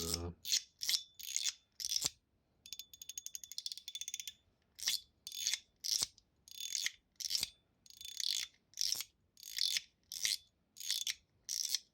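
Titanium YOLO Studio Huangcai mechanical fidget slider being slid back and forth, its spring-loaded ball detents snapping into the indents: a sharp click about every half second. About three seconds in comes a quick run of rapid ticks.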